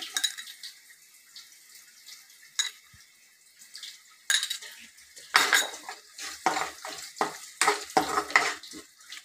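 A steel spoon scrapes and clinks against a steel kadhai while garlic and black pepper are stirred in hot oil. After a quiet stretch with a faint frying sizzle and a single clink, a quick run of scrapes starts about four seconds in.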